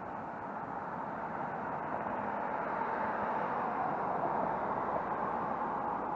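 A car passing on the road: steady tyre and engine noise that swells to a peak about four to five seconds in and then eases off.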